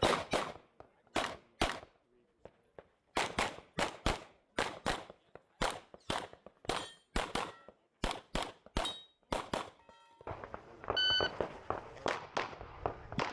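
9mm Glock 17 Gen 5 pistol firing in rapid strings, mostly quick pairs of shots, with a pause of about a second and a half early on. A brief metallic ring follows near the end.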